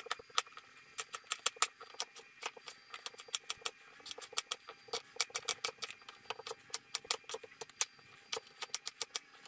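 Chef's knife chopping potatoes on a plastic cutting board: quick, unevenly spaced knocks of the blade striking the board, several a second.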